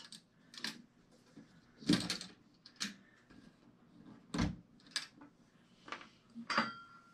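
Snap clips on a folding solar-panel briefcase being unlatched, a series of sharp clicks and knocks, then the two panel halves being swung open with a short squeak near the end.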